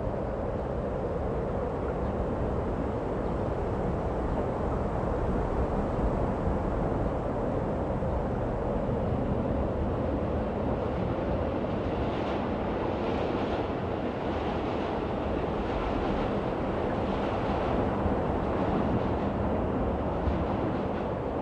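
A train running on its rails: a steady rumble, with short irregular rattling bursts joining in from about halfway through.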